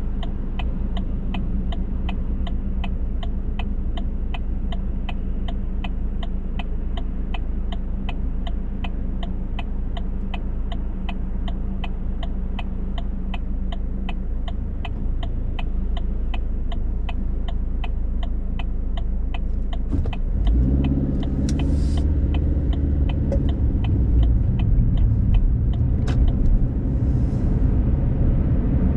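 Car's turn-signal relay ticking steadily, about three clicks a second, over the engine idling in the cabin. About twenty seconds in, the engine speeds up as the car pulls away, and the ticking stops a few seconds later when the signal cancels.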